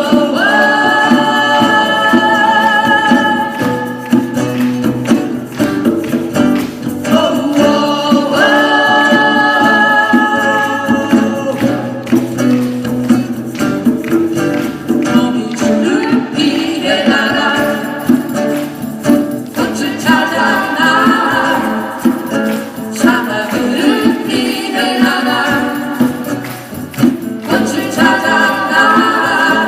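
A live band song with long held sung notes with vibrato, carried over a steady percussion beat.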